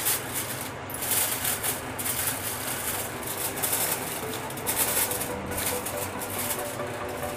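Aluminium foil crinkling and crackling in irregular bursts as hands press it down and crimp it around the rim of a baking tin.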